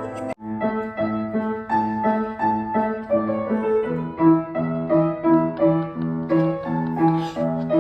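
Background piano music: evenly paced notes over a held bass, with a brief cut-out just after the start.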